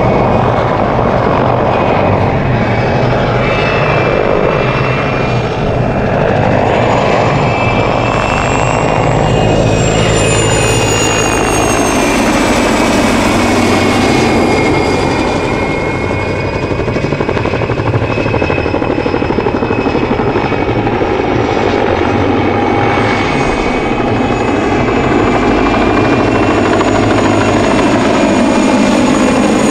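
PZL-Świdnik Mi-2 helicopter flying close by in a display: the whine of its twin GTD-350 turboshaft engines over the rotor noise, loud and continuous, the whine sliding down in pitch and back up as the helicopter passes and turns.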